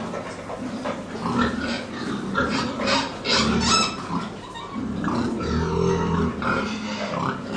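Pigs grunting and squealing in a barn, with a cluster of high squeals about three to four seconds in and lower grunts around six seconds in.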